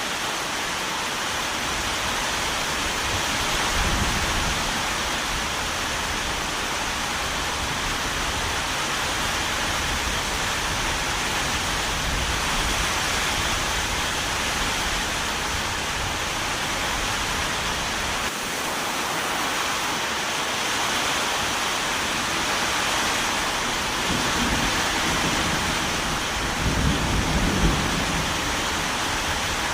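Steady heavy rain, a dense even hiss, with low rumbles swelling about four seconds in and again near the end.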